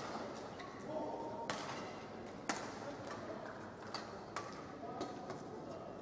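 Badminton rackets striking a shuttlecock: a few sharp cracks, about a second apart, echoing in a large hall over steady arena crowd noise.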